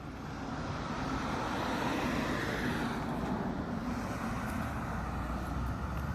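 Fire engine driving, its engine rumbling under a steady rush of road and tyre noise that grows louder over the first couple of seconds and then holds steady.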